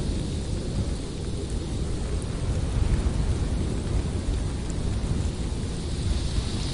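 Blizzard wind blowing hard in steady gusts, with a deep low rumble and a fainter hiss.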